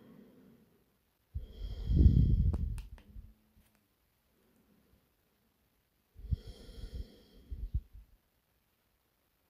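A woman taking two slow, deep yoga breaths, each lasting about two seconds, one about a second in and one about six seconds in. Between them there is quiet.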